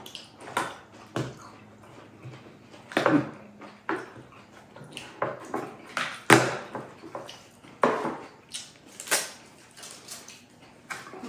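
Irregular light clicks and knocks of tableware being handled at a table: a small plastic cup being capped with its lid and set down, with the sharpest knock about six seconds in.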